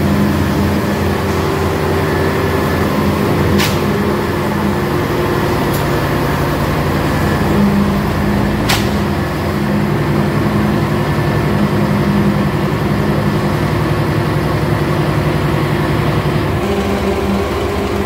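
Engine of a small 'frog' concrete pump running steadily while it pumps concrete through the delivery pipe, with two sharp knocks at about four and nine seconds in. Its note shifts slightly near the end.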